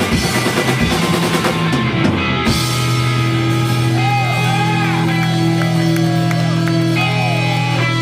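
Live rock band with electric guitars, bass and drums playing loud. About two and a half seconds in, the drums stop and a held chord rings on, with guitar tones sliding up and down over it.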